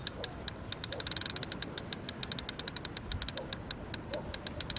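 Fishing reel clicking in a fast, even run of about ten clicks a second while a large hooked sturgeon pulls on the line.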